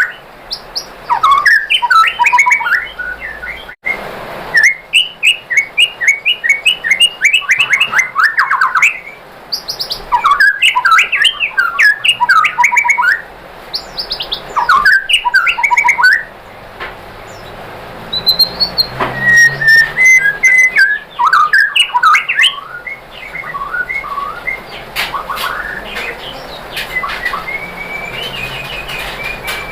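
White-rumped shama (murai batu) singing: rapid phrases of sharp chirps and trills broken by short pauses, turning to clearer, steadier whistled notes about two thirds of the way through.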